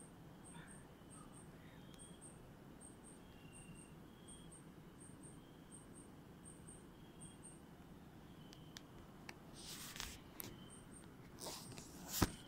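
Night insect calling: a high double chirp repeating about every half second or so, with fainter short calls lower in pitch. Near the end come several sharp knocks and rustles of handling, the loudest just before the end.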